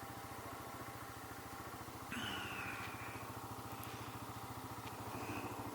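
Motorcycle engine idling with a steady, even pulse. About two seconds in a high tone sounds for about a second, sliding slightly down in pitch, and a shorter high tone comes near the end.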